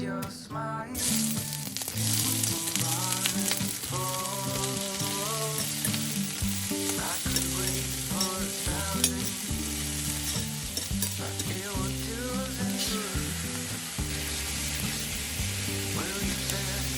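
Pork and bean sprouts sizzling in a hot pan as they are stir-fried. The sizzle starts about a second in, over background acoustic guitar music.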